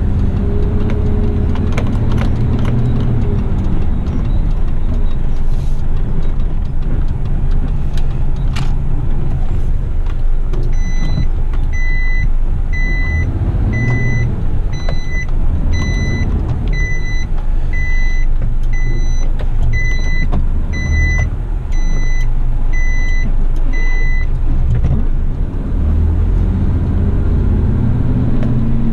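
Heavy rigid truck's diesel engine running at low speed while it manoeuvres. In the middle, its reversing alarm beeps about once a second, some fourteen times, as the truck backs up during a multi-point turn.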